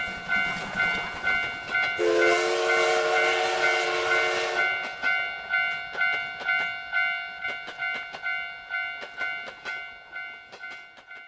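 Japanese railroad crossing warning bell ringing about two strokes a second. About two seconds in, a train sounds its horn for about two and a half seconds over a loud rush. Then the wheels click over the rail joints as the train passes, and the bell fades near the end.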